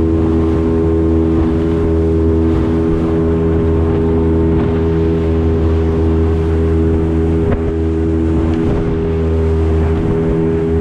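Outboard motor of a small fishing boat running at a steady cruising speed, an even engine note over a wash of wind and water noise.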